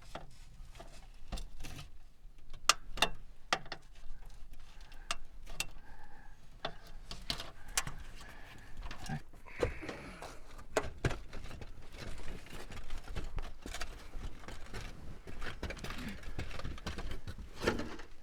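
Irregular clicks, knocks and clinks of hand work on a rooftop solar panel mount and its roof tiles as the panels are cut free and lifted.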